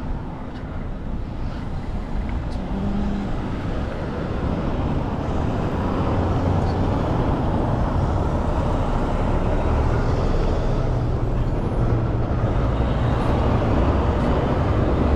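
Road traffic going by: cars and a heavy vehicle running past, the engine rumble growing louder from about five seconds in.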